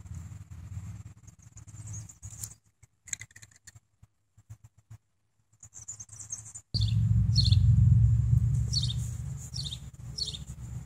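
A wild bird chirping outdoors: a string of about five short, falling chirps in the second half, over a low rumble on the microphone that comes in suddenly about two-thirds in. The sound drops almost to silence for a few seconds in the middle.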